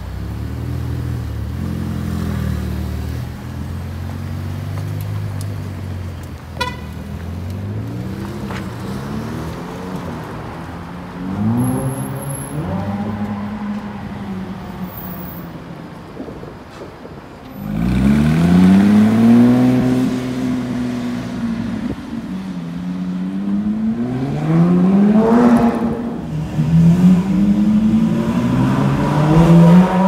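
Supercar engines revving and accelerating hard through the gears: the engine note climbs, drops back at each shift and climbs again, loudest in the second half.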